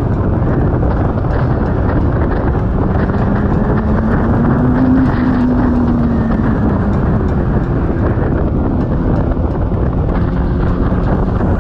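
Wind rush and road noise on an onboard camera of a BMW S1000RR at highway speed, over the bike's inline-four engine. The engine note rises and then eases again about halfway through.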